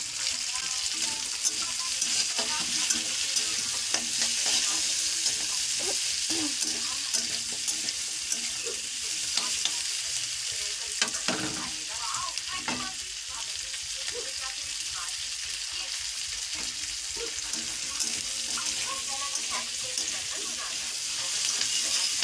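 Small whole onions sizzling in hot oil in an iron wok, with a steady frying hiss. A metal spatula stirs them and scrapes the pan now and then, giving short clicks.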